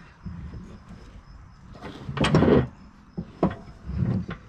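Cub Cadet mower deck dragged across a wooden board: a scraping slide about two seconds in, then a sharp knock and a shorter scrape near the end.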